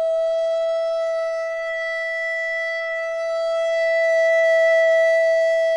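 Wooden soprano (descant) recorder playing one long low E, held at a steady pitch, swelling slightly in loudness about four to five seconds in.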